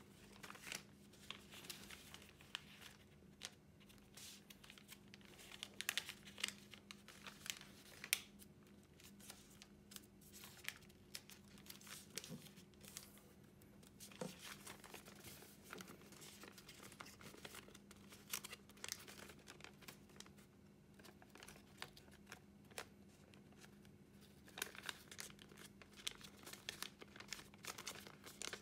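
Two-colour origami paper being folded and creased by hand: soft, irregular crinkling and rustling, with frequent sharp crackles as folds are pressed flat. A faint steady hum runs underneath.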